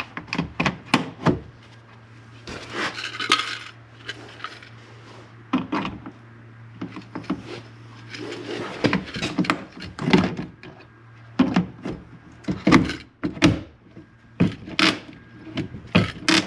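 Hand rivet gun being pumped to set a blind (pop) rivet holding a door speaker to the window regulator: a run of sharp clicks and knocks, with a short rasp about three seconds in.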